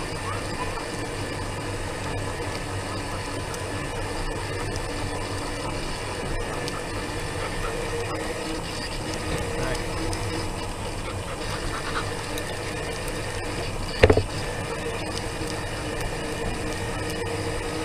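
Mobility scooter's electric drive running steadily as it rolls along pavement, a steady hum with a few held tones. A single sharp knock about fourteen seconds in.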